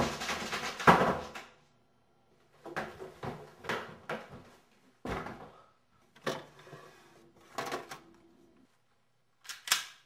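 A loud knock about a second in, then a run of separate wooden knocks and bumps spaced about a second apart, as a drawer of a wooden end table is handled, opened and shut. A sharp double knock comes near the end.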